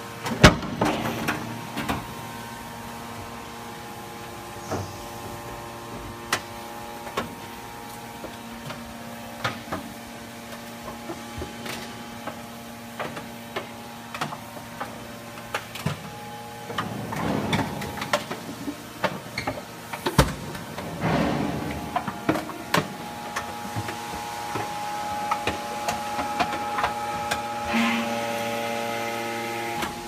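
Enerpat T125 three-ram scrap metal baler running: its hydraulic power unit gives a steady hum of several tones. Scattered sharp clicks and knocks sound over it, with a loud knock right at the start and two louder noisy stretches, each a second or two long, a little past halfway.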